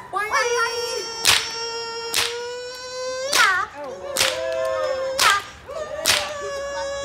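A whip cracking about six times, roughly once a second, over a steady held buzzy note that wavers and shifts slightly higher about halfway through.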